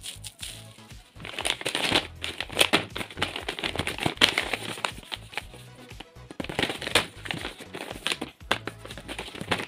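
Clear plastic wrap and paper crinkling and crackling under the hands in quick, irregular crackles, loudest in the first half, over background music with a steady bass line.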